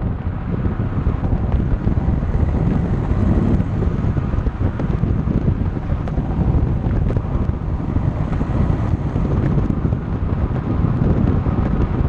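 Wind buffeting the microphone of a camera mounted low beside a moving car's front wheel, over a steady rumble of tyres on the road.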